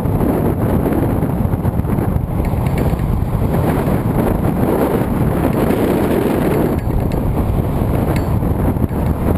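Loud, steady wind noise from air rushing over a GoPro mounted on the keel of a hang glider in flight.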